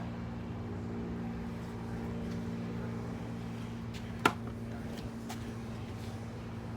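A 2003 Ford Explorer's engine idling steadily with its new spark plugs and wires, a low even hum, with one sharp click a little past four seconds in.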